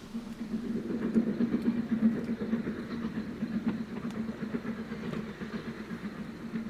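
Steam train working along the line: a steady low rumble with a rapid pulsing beat, starting suddenly.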